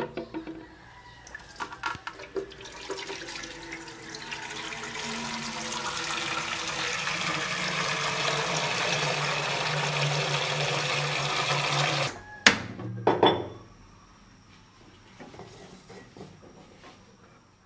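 Tap water pouring into an aluminium cooking pot, the sound growing louder as it fills, then cut off suddenly after about twelve seconds. A couple of sharp knocks follow.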